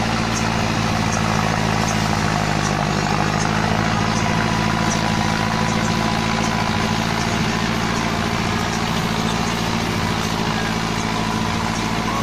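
Mahindra Arjun Novo 605 DI-i tractor's diesel engine running steadily under load, driving a rotavator that churns soil and banana stalks, with faint scattered ticks over the steady drone.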